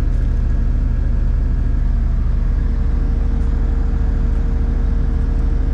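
Case SV280 skid steer's diesel engine running at a steady speed, a constant low rumble with no change in revs.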